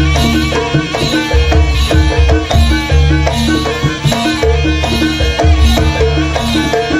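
Live jaranan gamelan music: hand drums and struck metal percussion playing a fast, steady rhythm over repeated deep low notes.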